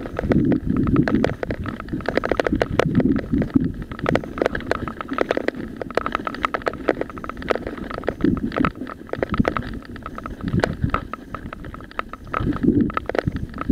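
Mountain bike clattering and rattling as it rolls fast downhill over a rough, rutted dirt track, with many sharp ticks and knocks from the bike. Wind buffets the camera microphone in low gusts.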